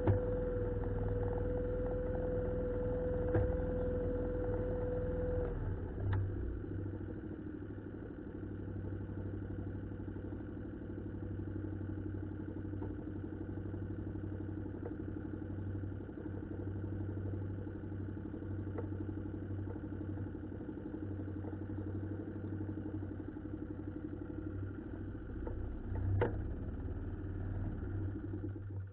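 A boat's motor running steadily; about five and a half seconds in its high note stops and it runs a little quieter and lower. A few light knocks sound over it.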